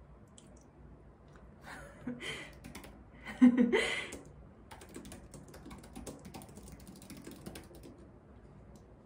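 A short burst of laughter, the loudest sound, about two to four seconds in, then fast light typing on an Apple Magic Keyboard, a quick run of soft key clicks, for the next few seconds.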